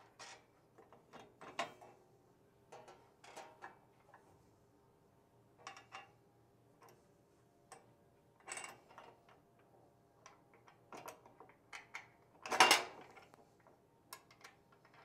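Small metal hardware clicking and clinking as carriage bolts, washers and nuts are handled and fitted by hand to the mower deck's hinge plate and mount, with one louder clank about three-quarters of the way through.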